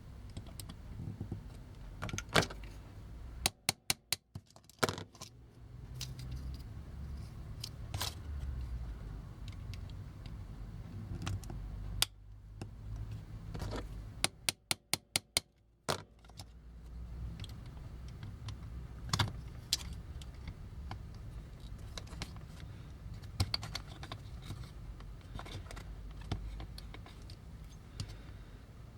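Small hand tools and the metal and plastic parts of a vintage toy clicking and tapping as they are worked on and handled. Scattered sharp clicks, with two short runs of quick, evenly spaced clicks about four seconds in and again around fifteen seconds.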